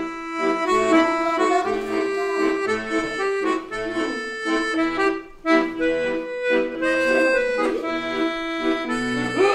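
Lively instrumental music: held melody notes and chords over a steady pulsing bass beat.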